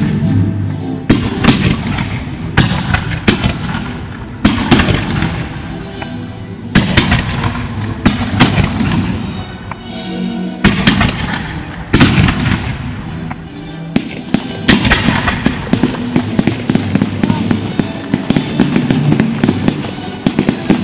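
Fireworks display: shells and comets fired from ground launchers in quick, irregular succession, giving a steady run of sharp bangs. Music plays underneath.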